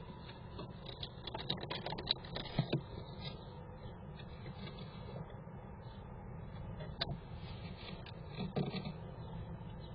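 A squirrel's claws scratching and scrabbling against the wooden nest box and its nesting material. There is a flurry of quick scratches in the first three seconds, a single sharp click about seven seconds in, and a few more scrapes soon after, over a faint steady hum.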